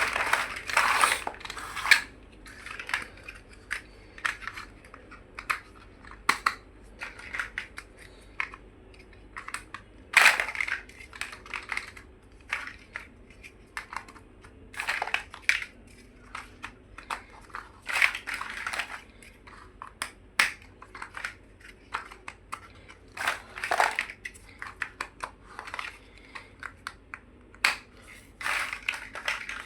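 Plastic building blocks being handled and pressed together: irregular clicks, clatters and rustles, with a few louder bursts.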